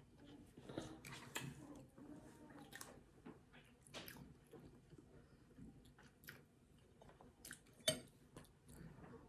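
Faint chewing of soft banana cake, with small mouth smacks and clicks; a sharper click comes near the end.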